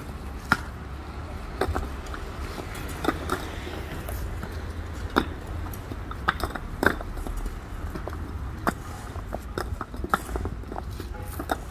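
Concrete paving blocks clacking and knocking against each other as they are set by hand into a sand bed, irregular sharp clacks one or two a second over a steady low rumble.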